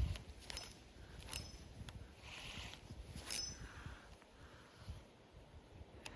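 Fishing tackle being handled: a few sharp metallic clicks with a brief high ringing, spaced irregularly, and a soft hiss about two and a half seconds in.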